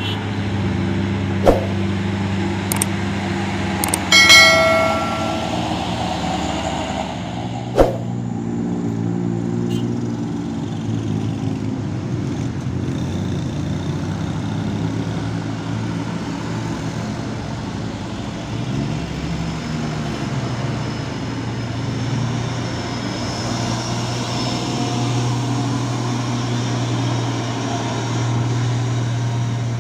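Heavy truck engine running steadily under load on a steep climb, with a short horn blast about four seconds in and two sharp knocks.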